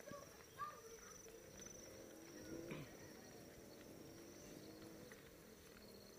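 Near silence: faint outdoor background with a thin, steady high-pitched buzz and a few faint chirps.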